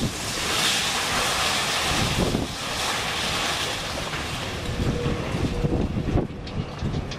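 Demolition rubble, concrete and twisted metal wall sections knocked loose by a crane's wrecking ball, crashing and sliding down the face of a multi-storey building in a long rush of noise. The rush is strongest over the first few seconds and then trails off. There is low wind rumble on the microphone.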